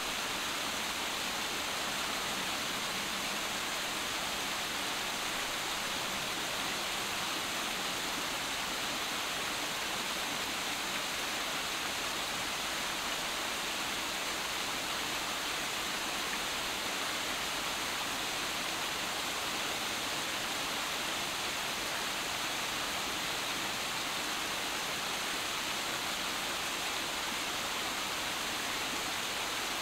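Small waterfalls cascading over rocks into a stream: a steady, unbroken rush of splashing water.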